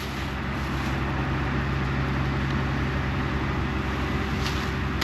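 Combine harvester's diesel engine running steadily under load: a constant low drone with no change in speed.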